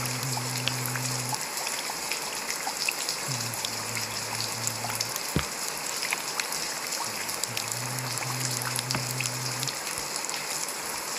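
Steady rain with many separate drops tapping, over soft low sustained music notes that come and go.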